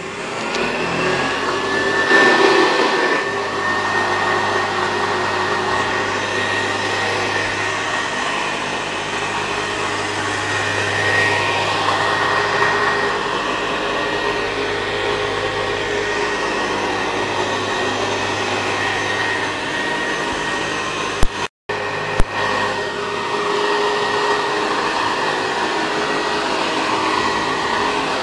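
Hoover 912A vacuum cleaner's motor spinning up, its whine rising over the first two seconds, then running steadily with its belt-driven agitator turning. The sound cuts out briefly with two clicks about 21 seconds in, then carries on.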